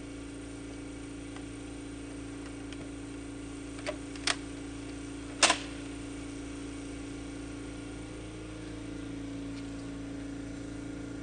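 Three sharp plastic clicks a few seconds in, the last the loudest and doubled: a toy pump-action gun being racked. A steady low hum runs underneath.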